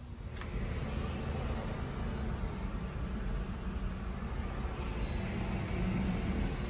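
Steady low rumble of a Hyundai car running, heard from inside the cabin.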